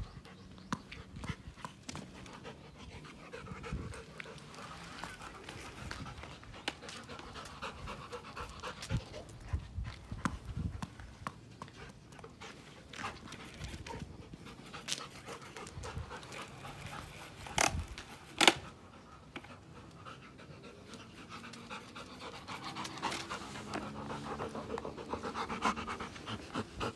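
Golden retriever panting steadily, getting louder and closer near the end, with scattered light taps and scuffs and two sharp knocks a little past halfway.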